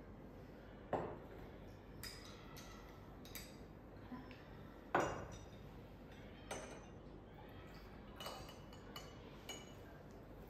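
Glassware being handled on a tabletop: scattered light clinks with a short ring, and two heavier knocks, about a second in and about five seconds in, as glass vessels are set down.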